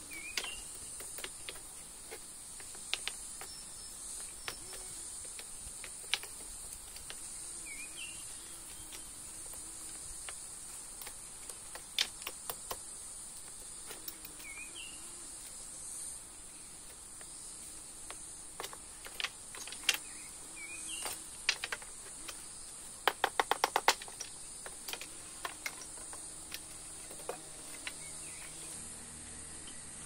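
Insects shrilling steadily at a high pitch, with scattered taps and clicks and a quick run of about a dozen clicks about three quarters of the way in. A bird gives a short call several times.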